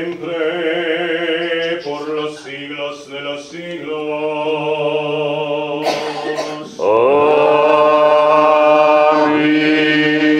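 Male voices chanting Orthodox liturgical chant: a slow melody sung over a steady low held note. About seven seconds in, the singing grows louder, with a voice gliding up into long held notes.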